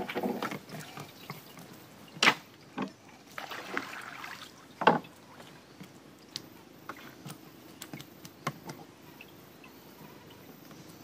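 Scattered knocks and clicks of gear being handled in a small boat, the two loudest about two and five seconds in, with a short splash or pour of water between them.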